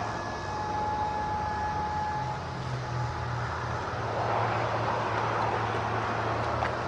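Federal Signal DSA electronic outdoor warning sirens holding a steady alert tone that cuts off about two seconds in. A passing vehicle's engine hum and road noise then swell and fill the rest.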